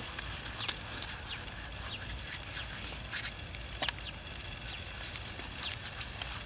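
Outdoor ambience: a steady low rumble of wind on the microphone, with scattered short, high chirps of birds and a few faint clicks.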